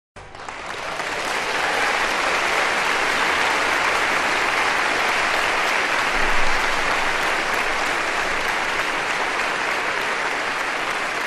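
Audience applauding, swelling over the first couple of seconds and then holding steady.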